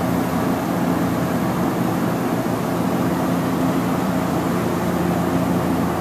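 Outdoor unit of a York heat pump running steadily: an even mechanical hum with several low steady tones.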